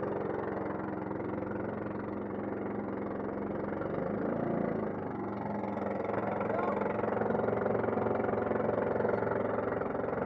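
Motorized outrigger boat's engine running steadily while the boat is underway.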